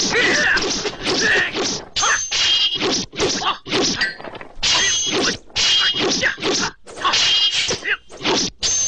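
Kung fu film fight sound effects: a rapid run of dubbed blows and weapon strikes, about three a second, some of them followed by a short ringing tone.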